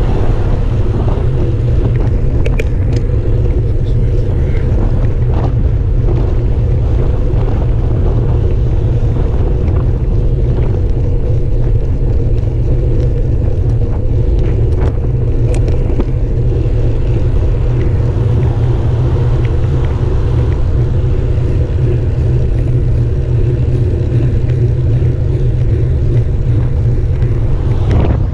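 Steady loud rumble of wind and road noise on a handlebar-mounted camera on a moving bicycle, with a few light clicks.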